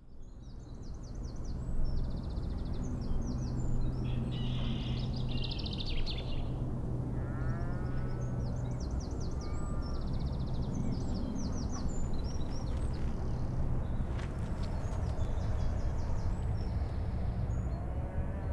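Rural outdoor ambience: small birds chirp and trill again and again over a steady low rumble. It fades in over the first couple of seconds.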